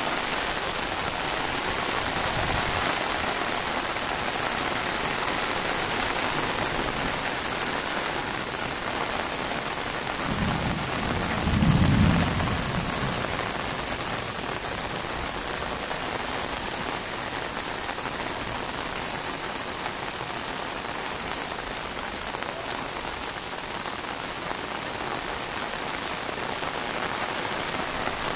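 Heavy rain falling steadily on a concrete rooftop, an even hiss throughout. About ten seconds in, a deep rumble swells for a few seconds and is the loudest moment.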